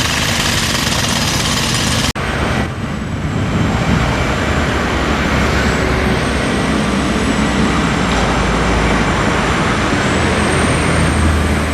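Heavy diesel construction machinery running: a dense, harsh noise that cuts off abruptly about two seconds in, then a steady low engine rumble with a faint high whine that slowly wavers in pitch.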